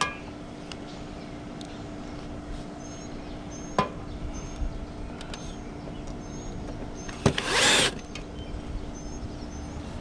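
Bosch cordless drill-driver running in one short burst of about half a second, about seven seconds in, just after a sharp click; a few other light clicks and faint high chirps over a low steady hum.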